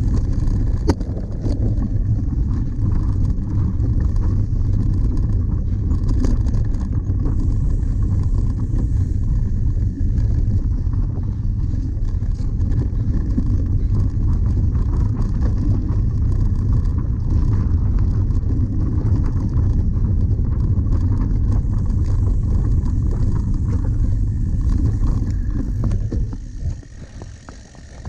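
Cyclocross bike ridden fast over bumpy grass: a steady, rough rumble of tyres and frame vibration with small knocks, picked up by a camera mounted on the bike. It goes quieter for a second or two near the end.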